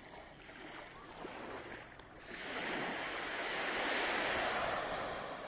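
Small waves breaking and washing up a sandy shore: one wash swells up about halfway through, peaks, and fades again.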